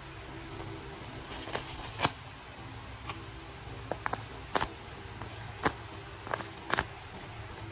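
Paper and packing tape being handled: crinkling and irregular sharp crackles as a tape-covered paper squishy is taken out of its paper box and squeezed.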